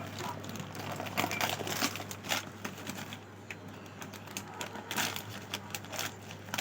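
Plastic snack packets crinkling and rustling as they are handled and opened, a run of irregular crackles.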